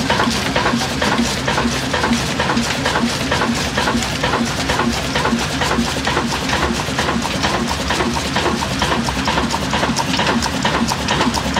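Old Ruston Hornsby-pattern 35 hp stationary diesel engine running steadily, with a fast, even mechanical clatter.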